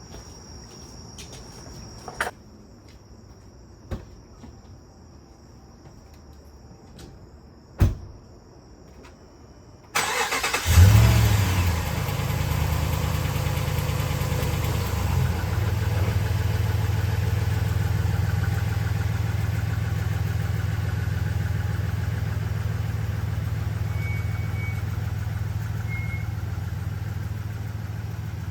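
Faint steady chirping of crickets with a few sharp clicks, then about ten seconds in the 2010 Ram 1500's 5.7 L Hemi V8 starts, flaring briefly as it catches, and settles into a steady idle.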